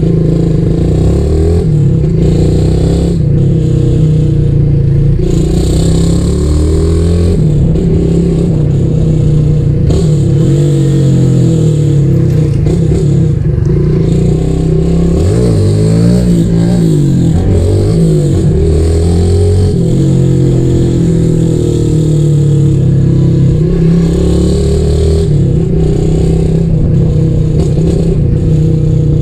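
150 cc fuel-injected motorcycle with a loud aftermarket Roncar exhaust being ridden, its engine note rising and falling again and again as the rider revs and shifts.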